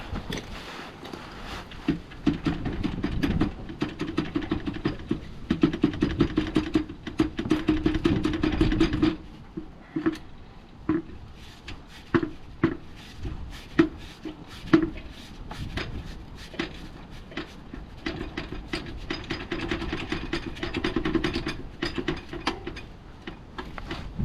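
Runs of rapid metallic clicking and rattling, ratchet-like, as tools and metal parts are worked while freeing and lifting out the gearbox; the sharpest clicks fall in the first half.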